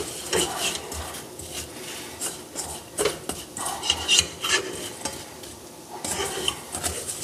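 Wooden spoon stirring sugar-coated almonds and hazelnuts in a stainless steel saucepan: irregular scraping strokes and clicks of nuts against the pan. The sugar has crystallised into a sandy coating on the nuts, the first stage of cooking chouchous (sugar-coated nuts).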